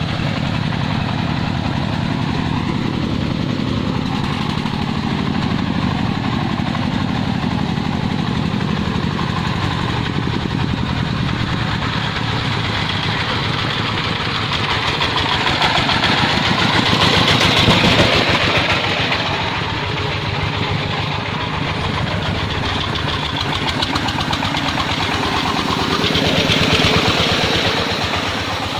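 Single-cylinder diesel engine of a công nông farm truck running steadily, growing louder twice, about halfway through and again near the end.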